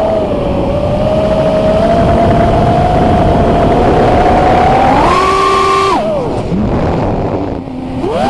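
FPV racing quadcopter's brushless motors whining at a steady pitch over a rushing noise. The pitch jumps up about five seconds in, drops away a second later, and climbs back near the end as the throttle comes up again.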